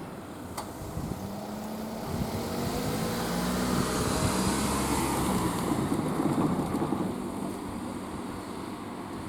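A vehicle passing the level crossing: it grows louder, is loudest a little past the middle, then fades, with a motor tone that rises slowly in pitch.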